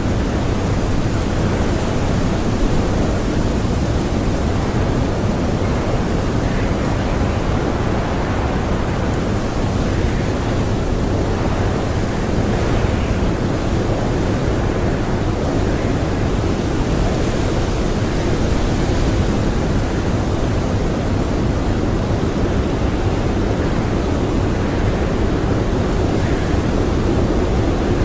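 Blizzard wind blowing steadily as a dense rushing noise, swelling slightly in gusts a few times.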